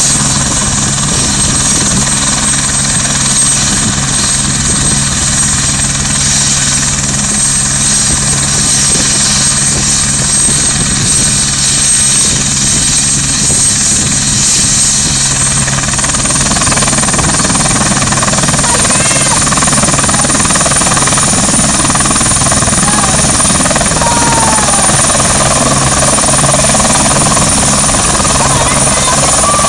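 Turbine helicopter running on the ground with its rotor turning: a steady high turbine whine over a low hum. About halfway through, the whine rises a little in pitch and the sound grows fuller as the engine spools up for take-off.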